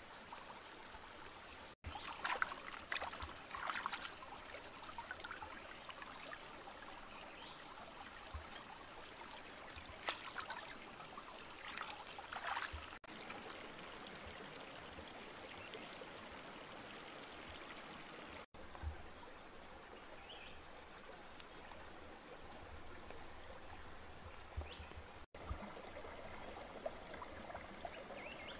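Shallow stream trickling steadily over rocks, with brief louder splashing a couple of seconds in and again around ten seconds in.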